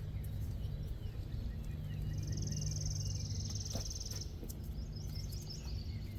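Outdoor ambience with a steady low rumble. About two seconds in, a high, rapidly pulsing trill starts and lasts about two seconds, with faint short chirps around it.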